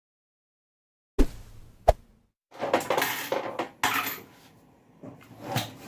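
Dead silence for about a second, then a sharp knock and a click, followed by a couple of seconds of rustling and knocking and one more knock near the end, from a USB sound bar and its cables being handled on a computer desk.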